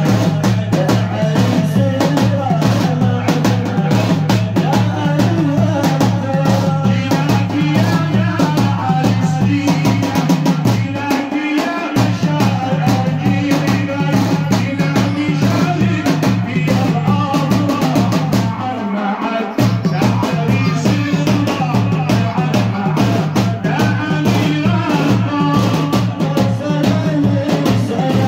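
Live amplified music led by a drum kit keeping a steady beat over a heavy bass line. The bass drops out briefly twice, about eleven and nineteen seconds in.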